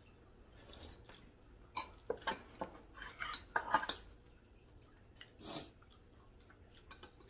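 Metal chopsticks and spoons clinking and tapping against ceramic rice and soup bowls during a meal: a cluster of short clinks about two to four seconds in, then one more a little later.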